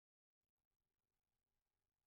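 Near silence: the soundtrack is essentially silent.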